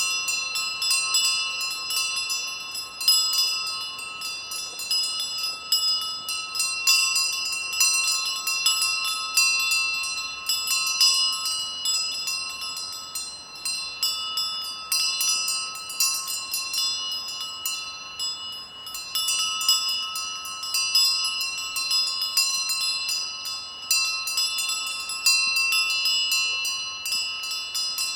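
Several bells worn by grazing sheep, clanking and ringing irregularly and overlapping throughout.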